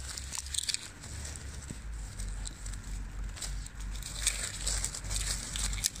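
Dry pine needles and twigs crackling and rustling as a gloved hand pushes through the forest litter, with scattered small snaps. A low rumble runs underneath from about two seconds in.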